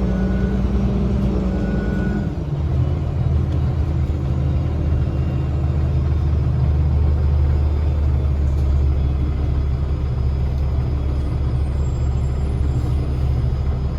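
Cummins ISL straight-six diesel of a 2010 Gillig BRT transit bus running, heard inside the passenger cabin as a steady low drone. A higher tone and a faint whistle over it stop about two seconds in.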